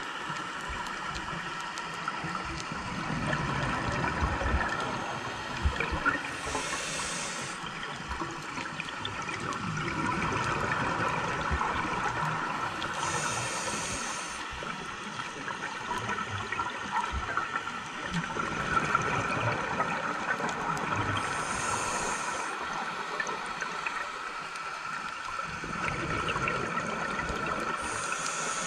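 Scuba diver breathing through a regulator underwater: a short hiss of inhaled air about every seven seconds, four times, alternating with the low bubbling of exhaled air, over a steady high hum.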